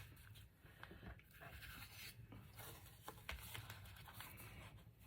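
Near silence with faint rustling and light taps of paper being handled.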